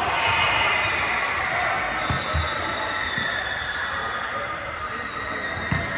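A basketball bouncing on an indoor court: a few irregular thumps, about two seconds in, again at three seconds and near the end, over a continuous echoing murmur of voices in the hall.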